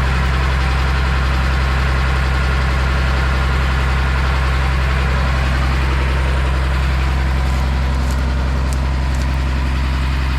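An engine running steadily at a constant speed: a loud, unchanging low hum.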